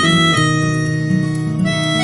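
Background music: a melody of held notes over chords, changing every half second or so.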